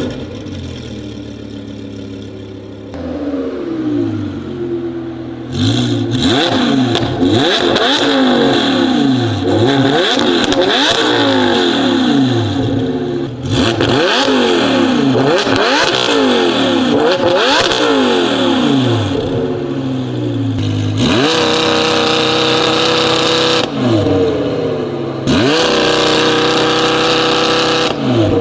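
Audi R8 GT's V10 engine, with a titanium valved exhaust and free-flow equal-length headers, idling high just after starting, then free-revved in a quick run of blips from about five seconds in. Near the end it is twice held at high revs for a couple of seconds.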